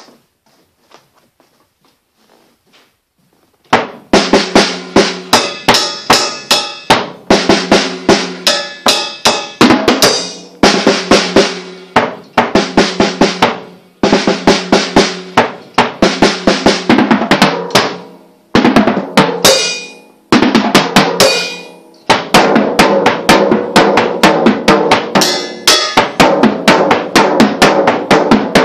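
Drumsticks playing a fast drum solo on towel-covered drums, starting about four seconds in after a few faint taps. The strokes come in quick runs and rolls, each a second or two long, with short breaks between.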